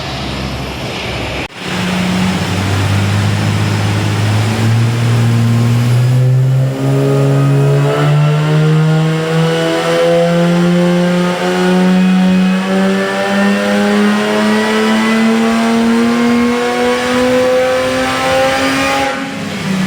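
Turbocharged V6 Holden Commodore engine accelerating hard under load, its pitch rising slowly and steadily in one long pull without a gear change, then stopping near the end.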